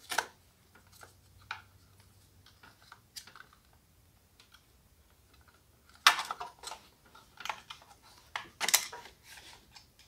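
Light clicks and clatters of a metal chop saw's handle and switch housing being handled and fitted back together: scattered small clicks at first, then two bursts of louder rattling about six and nine seconds in.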